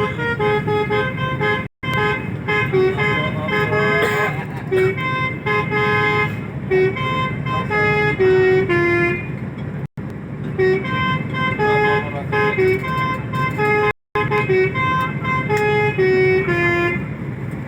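Indonesian bus 'telolet' horn playing a tune of quick multi-note toots and held notes, the phrase repeating about every nine seconds, over a steady low engine and traffic rumble. The sound cuts out for a moment three times.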